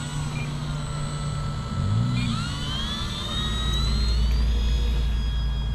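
E-flite P-47 Razorback RC warbird's electric motor and propeller whining up in pitch as the throttle is opened for the takeoff roll off grass, holding at a high whine near the end. A low rumble comes in over the second half.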